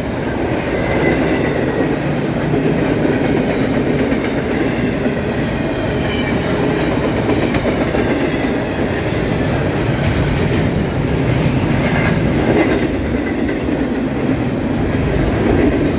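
Freight train of empty intermodal well cars rolling past at steady speed: a continuous rumble and clatter of steel wheels on the rails, with faint high-pitched wheel squeals now and then.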